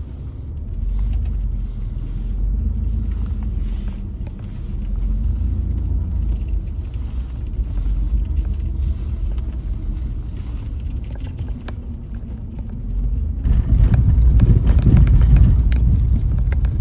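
Car driving, heard from inside the cabin: a steady low rumble of engine and tyres, which grows louder and rougher about three-quarters of the way through.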